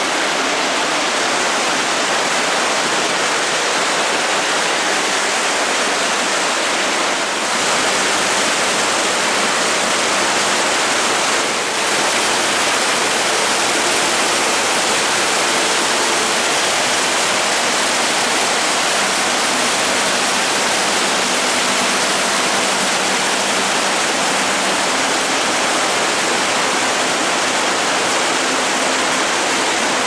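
White water of a mountain stream tumbling over boulders in a gorge: a loud, steady rushing of water.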